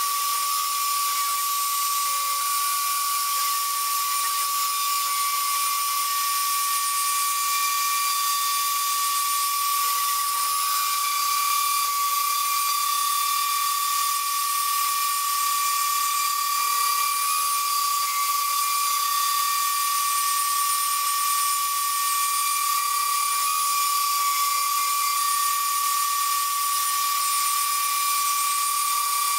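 Mafell FM 1000 router spindle on a CNC mill, running at about 20,000 rpm and cutting 2 mm FR4 fiberglass with a diamond-toothed 2 mm cutter at full depth. It makes a steady high whine, with fainter higher tones that shift slightly in pitch now and then.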